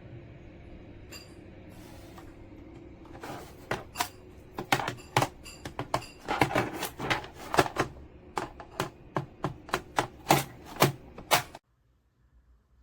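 Typing on a typewriter-style mechanical keyboard: irregular clacking keystrokes start about three seconds in and cut off suddenly near the end.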